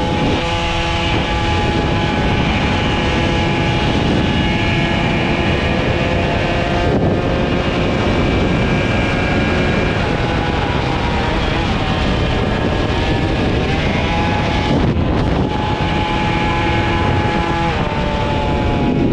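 Two-stroke moped engine running hard at high revs on a race track, its pitch held fairly steady. The pitch glides briefly about two-thirds in and drops near the end.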